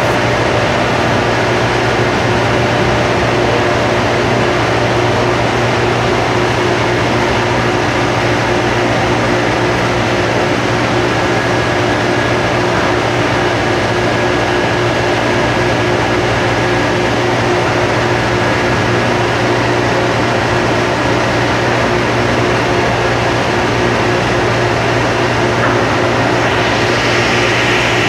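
Loud, steady industrial drone of the machinery around an aluminium holding furnace on a continuous casting and rolling line, with a constant low hum and several steady tones. A higher hiss joins in near the end.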